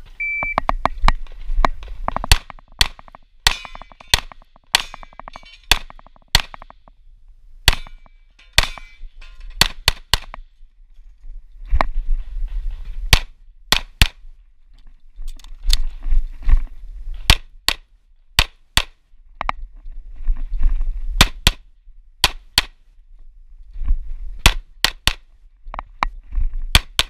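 A short electronic shot-timer beep, then a semi-automatic pistol fired in rapid strings, mostly quick pairs, through a timed USPSA stage. The strings are broken by short pauses for movement and reloads.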